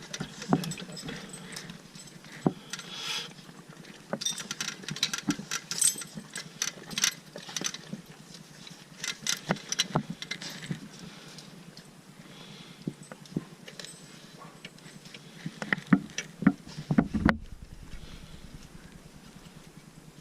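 Irregular metal clicks, taps and clinks of parts and hand tools being worked as a clutch spring is fitted to a tractor's throwout bearing, with a cluster of louder knocks near the end.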